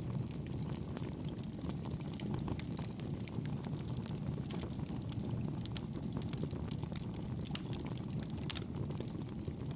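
Wood fire burning in a fireplace: a steady low rumble of flame with frequent small crackles and pops throughout.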